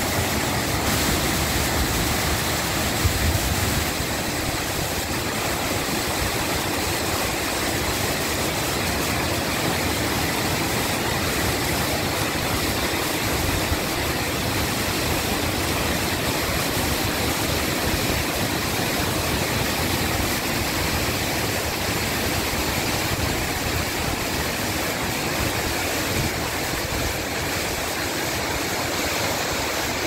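Waterfall at close range: a loud, steady rush of falling water that holds without a break.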